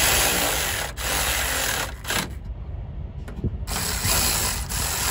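Cordless electric ratchet whirring in three bursts as it runs bolts in, the last burst near the end the longest.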